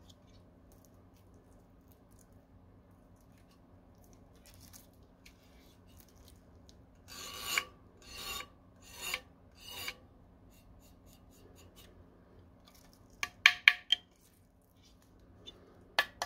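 Hands handling a Gigabyte GeForce RTX 4070 Super Aero OC graphics card: fingers rub and scrape over its metal backplate and heatsink fins in four short rasping strokes. A few sharp clicks or taps follow in the last few seconds.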